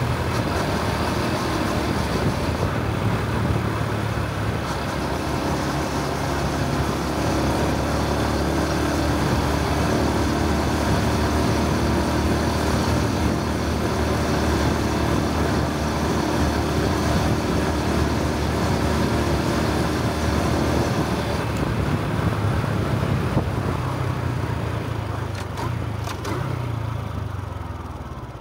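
Honda Super Cub C125's single-cylinder four-stroke engine running under way, with wind and road noise over the microphone. Near the end the engine note falls and the sound quietens as the bike slows.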